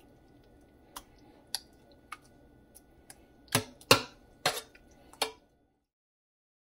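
Metal spoon knocking and clinking against a speckled enamel roasting pan while spreading sauce: a series of sharp clicks, the loudest about four seconds in. The sound cuts off suddenly about five and a half seconds in.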